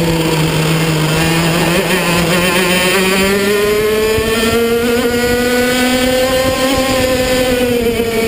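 Racing kart engine heard from on board. It runs low in revs for the first couple of seconds, climbs steadily for about four seconds as the kart accelerates, then holds and eases off slightly near the end.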